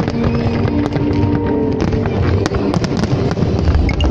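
A dense barrage of fireworks crackling and popping in rapid succession, with music playing underneath.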